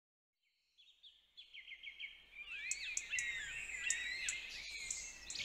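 Birds chirping and singing, fading in from silence after about a second: quick repeated downward chirps at first, then several birds' warbling calls overlapping.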